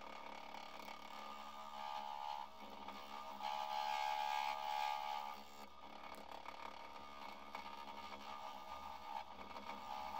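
Turning gouge cutting a spinning blank of cactus skeleton cast in resin on a wood lathe: a steady scraping hiss with a whining tone, loudest for about two seconds in the middle.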